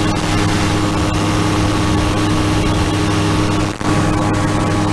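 A powered parachute's engine and propeller run at a steady cruise drone in level flight, with wind rushing past the open airframe. The sound dips briefly about three-quarters of the way through.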